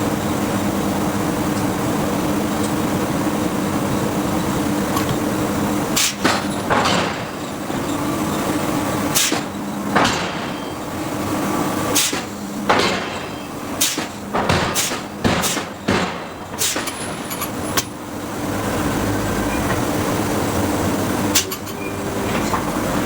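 Hydraulic forging hammer striking hot steel: about a dozen heavy, irregularly spaced blows from about six to seventeen seconds in, and one more near the end, over a steady hum of shop machinery.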